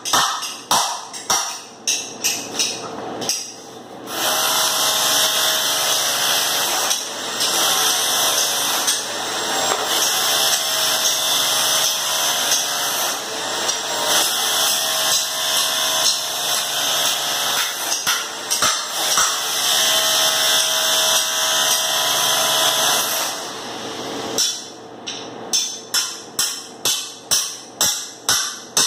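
Hammer blows on the old glued-down wood flooring, about three a second. About four seconds in they give way to a long, steady, harsh scraping-grinding noise of tool work on the floor, and near the end the quick hammer strikes come back.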